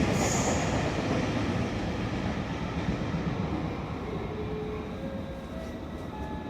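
A train running in the station, heard as a broad rumble that slowly fades. A high squeal dies away in the first half-second.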